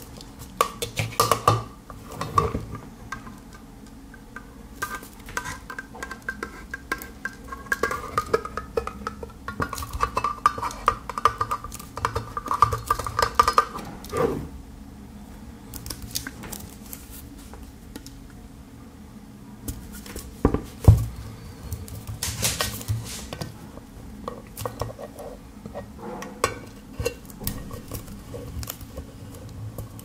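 Swiss Army knife can-opener blade levering and cutting around the rim of a tin can lid: repeated metallic clicks and scrapes of steel on tin.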